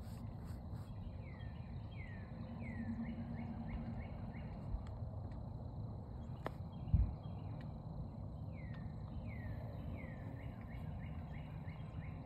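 A bird singing two runs of quick, falling whistled notes, over a low steady rumble and a thin high tone that does not change. A single brief low thump comes about seven seconds in.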